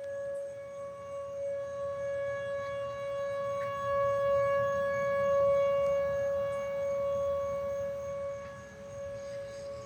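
Outdoor tornado warning siren sounding a steady wail at one constant pitch. It grows louder toward the middle and fades somewhat near the end.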